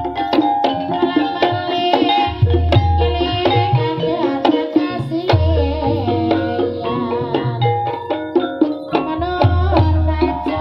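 Javanese ebeg dance music: hand-played kendang drums beat out deep strokes in clusters every couple of seconds under tuned gamelan percussion ringing held notes and quick struck figures.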